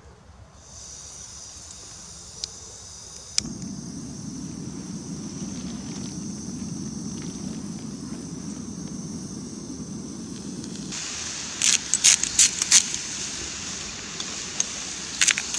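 Small camping gas stove on a blue screw-on canister: the valve is opened with a steady hiss of gas, then a click about three seconds in and the burner lights with a steady low roar. From about eleven seconds, vegetables in the frying pan sizzle, with sharp pops and crackles.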